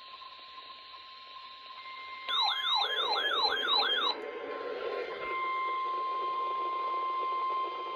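Electronic alarm sound of the car-alarm kind: about six quick falling sweeps in under two seconds, starting about two seconds in. A faint steady high tone runs underneath, and after the sweeps a steady hiss.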